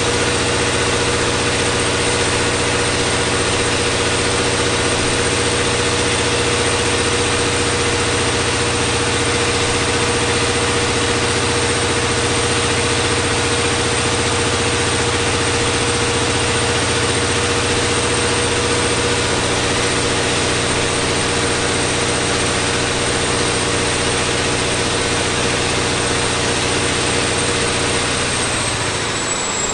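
Caterpillar 3508B twin-turbo V8 diesel running steadily on a dynamometer, with a high turbocharger whistle over the engine. Near the end the whistle slides down in pitch as the engine winds down.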